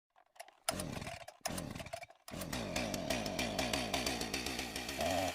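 Two-stroke chainsaw running and revving up and down, cutting out abruptly twice in the first couple of seconds.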